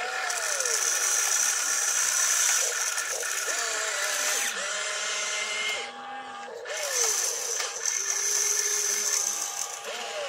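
RC excavator's electric motors whining in repeated swells that rise and fall in pitch as it swings and works its arm, with a steady high hiss under them. The sound drops briefly about six seconds in, then starts again.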